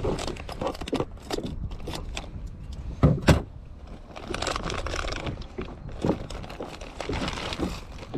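Plastic bag rustling and crinkling with clicks and knocks of a plastic box as dead mackerel are pulled out by hand, with two loud knocks about three seconds in.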